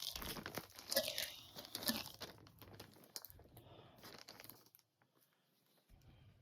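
Plastic packaging crinkling and rustling as skeins of yarn are handled, in irregular bursts that are loudest in the first couple of seconds and thin out after about three.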